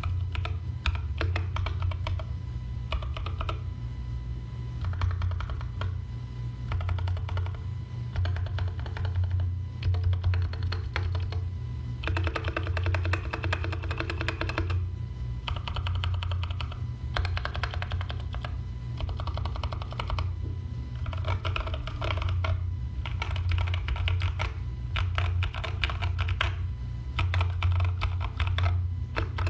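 Typing on a keyboard: rapid key clicks in runs of a few seconds with short pauses between them, over a steady low hum.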